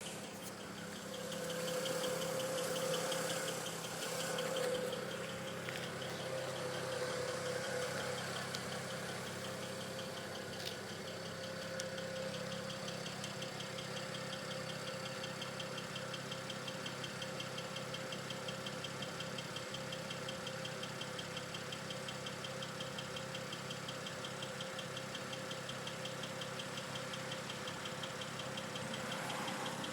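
BMW N54 twin-turbo inline-six idling with a rapid, even ticking over the engine note. The owner takes the ticking for the normal noise of its direct fuel injectors, not a fault.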